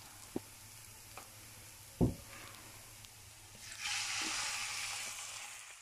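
Beetroot and onion sizzling faintly in oil in a hot pan, with a few sharp knocks, the loudest about two seconds in. Near four seconds in, water poured from a glass hits the hot pan and sets off a loud hiss that fades near the end.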